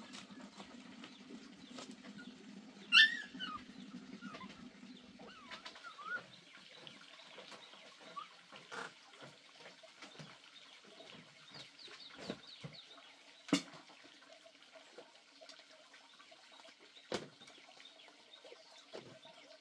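Two dogs play-fighting: a low steady growl for the first five seconds or so, with one loud, sharp yelp about three seconds in. After that come scattered light knocks and footsteps, with brief bird chirps.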